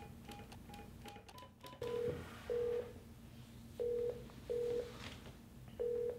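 Office desk phone on speakerphone: short keypad beeps, each with a click, as the last digits are dialled. From about two seconds in, the ringing tone comes through the speaker as pairs of short beeps, repeating about every two seconds.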